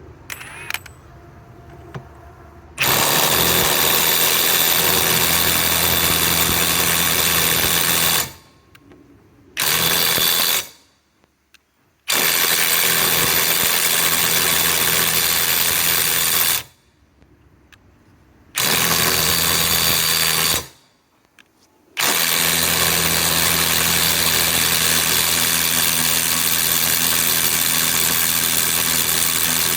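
Cordless Ridgid Octane mid-torque impact wrench, set to speed 3, hammering on a 1-1/2-inch nut in five runs of one to six seconds each with short pauses between. The first run starts about three seconds in and the last is still going at the end.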